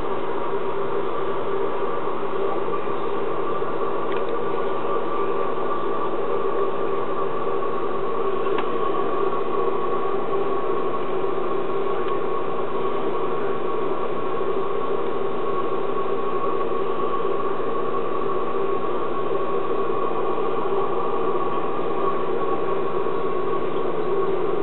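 Steady mechanical hum with hiss from an aquarium pump running, holding level throughout.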